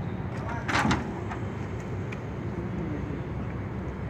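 Steady low machinery hum of a chilled-water pump plant room, with one short, loud clatter a little under a second in.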